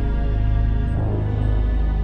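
Background music: slow, sustained ambient synth chords over a deep low drone, with a new chord entering about a second in.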